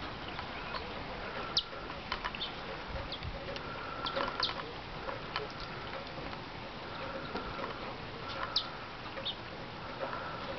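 Northern cardinals giving sharp, high chip calls, a handful scattered through, over a steady hiss, with a fainter, lower repeated bird call underneath.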